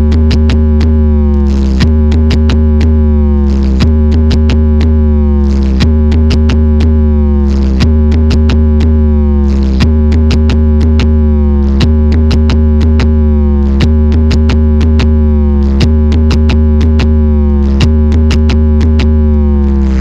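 Loud electronic DJ music with very heavy bass, played through a four-by-15-inch speaker rig under sound check. A falling synth phrase repeats about every two seconds.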